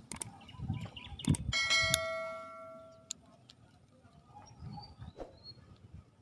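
Subscribe-button sound effect: a few sharp clicks, then a bright chime-like bell ding about a second and a half in that rings out and fades over a second and a half. A few faint bird chirps follow.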